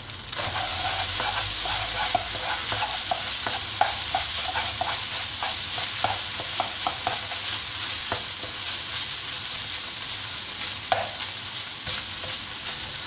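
Fried rice sizzling in a non-stick wok as a spatula stirs and turns it: a steady frying hiss, with quick scraping taps of the spatula against the pan a few times a second for the first half, then only now and then. The rice is nearly cooked.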